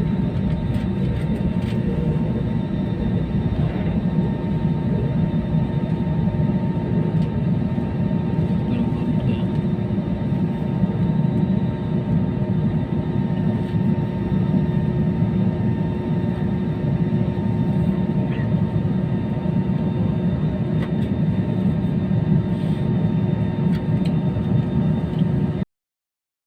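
Jet airliner engines running steadily: a low rumble with a steady whine on top, cutting off abruptly near the end.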